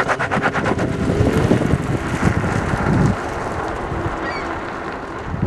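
Ford Mustang EcoBoost's turbocharged 2.3-litre four-cylinder, breathing through an MBRP race cat-back exhaust, pulling away hard. A fast run of sharp pulses comes in the first second, then the exhaust note rises and drops about three seconds in and fades as the car goes into the distance.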